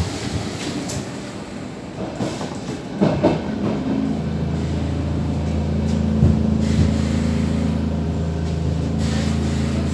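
Inside a Stockholm Metro C6 car: the train's running noise with a short clatter about three seconds in. After that comes a steady low electrical hum from the train's equipment, holding one pitch.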